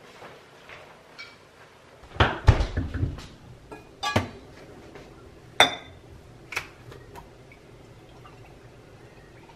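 Kitchen handling clatter: a quick run of loud knocks, then a few single sharp clinks, one with a short metallic ring, as a steel milk pitcher and a plastic milk bottle are handled on a counter and an espresso machine's drip tray. Milk pours quietly into the pitcher near the end.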